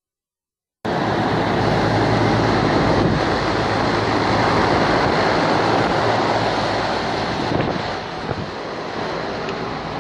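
Steady rushing air noise with a low hum underneath, starting abruptly about a second in and easing slightly near the end.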